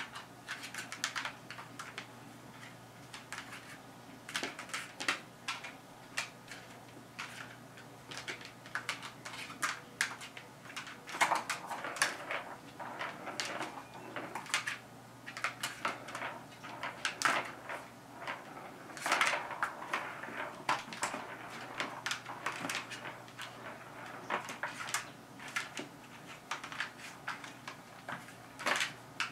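A ball rattling and rolling round a plastic figure-eight cat track toy as two kittens bat at it, with irregular bursts of clicks and clatter and short runs of rolling.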